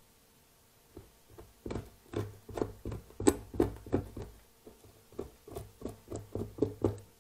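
Metal tweezers picking and scraping at capped brood cells in a wax comb, opening the cappings and pulling out pupae to check them for varroa mites: a run of quick taps and scratches, about three a second, starting about a second in.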